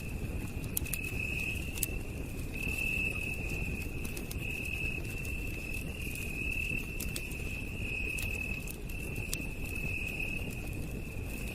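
Campfire crackling, with scattered sharp pops over a low, steady rumble. Night insects trill continuously at a high pitch, in a pulsing chorus that swells and dips about once a second.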